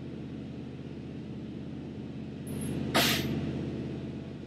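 1976 Chevy C65 log truck's engine running steadily. A short, loud hiss of air comes about three seconds in.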